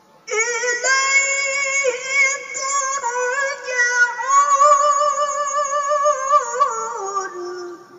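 A woman's melodic Quran recitation (tilawah), in a high voice: one long ornamented phrase held on a single breath, beginning suddenly, with rapid wavers in pitch, falling lower near the end before it breaks off.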